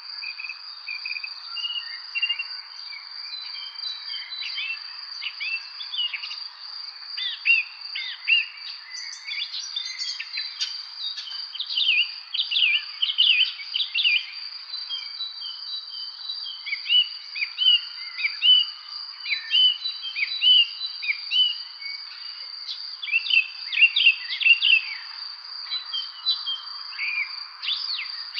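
Songbirds chirping in many short, quickly falling notes over a continuous high-pitched insect trill. The birdsong gets busier about twelve seconds in and again near the end.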